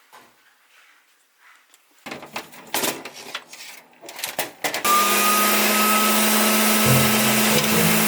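A few clicks and knocks from handling, then a vacuum cleaner for pet hair switches on about halfway through. Its motor spins up with a slightly rising whine and settles into a loud steady run with a hum.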